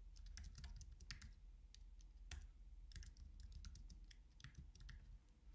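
Faint typing on a computer keyboard: quick, irregular keystroke clicks.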